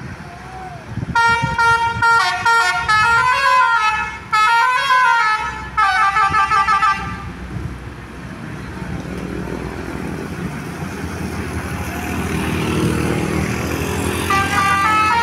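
Basuri 'telolet' multi-tone bus horn playing a quick stepping tune of several notes for about six seconds, with brief breaks. Vehicle engine and road noise then rise, and the horn sounds again briefly near the end.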